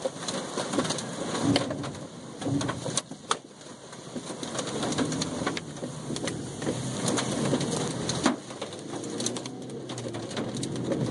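Hailstones pelting the car's roof and windshield, a dense patter of sharp impacts over steady rushing wind and rain, heard from inside the cabin through the open driver's window.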